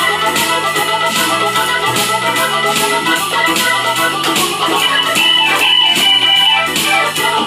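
Korg Pa600 arranger keyboard playing a blues in a Hammond-style organ sound: quick right-hand lines over a steady beat and a bass line, with some higher held notes in the last couple of seconds.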